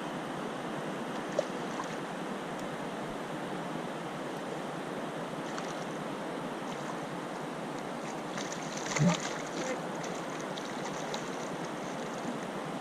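River water rushing steadily over rapids, an even hiss, with a short louder knock or splash about nine seconds in.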